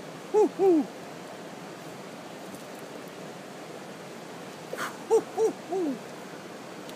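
Short hooting calls, each rising and then falling in pitch: two about half a second in, then three more about five seconds in, over a steady hiss.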